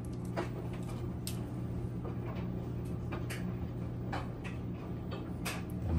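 Scattered faint clicks and ticks of fingers handling a plastic Chevy bowtie emblem and picking at its adhesive backing, over a steady low hum.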